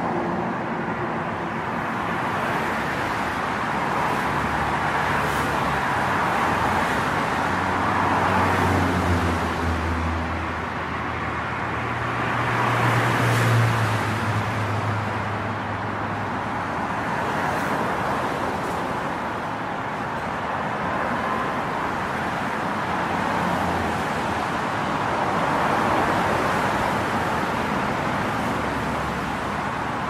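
City road traffic noise, with a vehicle's low engine hum swelling in the middle and fading away again.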